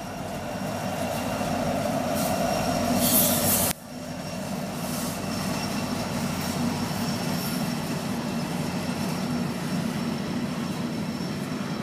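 BNSF freight train passing close by: the diesel locomotives go by, then the empty coal cars, with a steady rail rumble. A louder stretch in the first few seconds cuts off suddenly about four seconds in.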